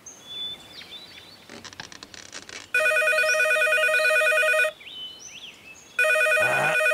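Telephone ringing: two rapid trilling rings of about two seconds each, the second starting about a second after the first ends. Faint high chirps come before and between the rings.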